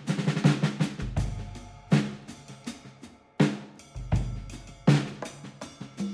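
Music with a drum-kit beat, sharp snare-like hits and deep sustained bass notes.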